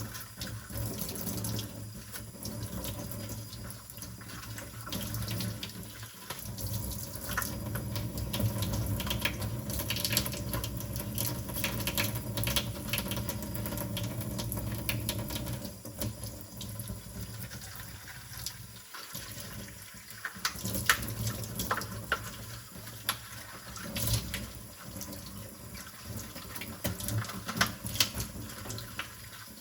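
Kitchen tap running into a sink while dishes are washed by hand, with frequent short clinks and knocks of dishes and cutlery against each other and the sink.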